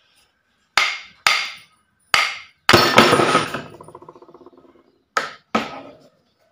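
Hammer blows knocking the rotor shaft free from the end plate of a V-Guard 1 HP pump motor, done to reach its failed bearings. About seven sharp strikes. The loudest, near the middle, is followed by a ringing that dies away over about two seconds.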